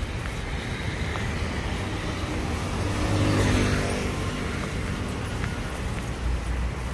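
Street traffic, with a motor vehicle passing close by about three seconds in, its engine sound swelling and then fading.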